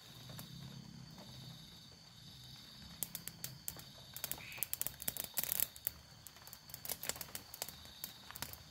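Thin sticks clicking and crackling as they are laid onto and catch in a small campfire, in clusters from about three seconds in. Night insects trill steadily behind.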